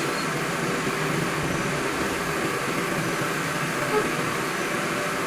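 Steady hum and hiss of compressed-air spray painting: an air compressor running while a paint spray gun sprays.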